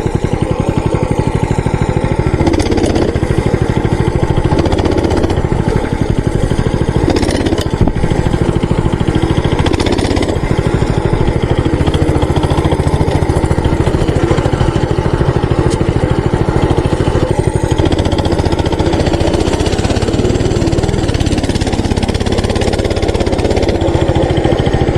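Mini bike's small engine running steadily under way, a fast, even chugging, with a few short knocks over bumps.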